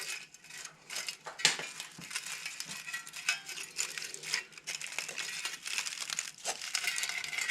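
Humidifier evaporator pad being squished and worked into its holder by hand: irregular crinkling and rustling with scattered sharp clicks.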